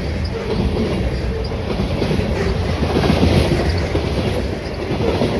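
Freight train cars rolling past with a steady rumble and steel wheels clacking over the rail joints, with a few short wheel squeals.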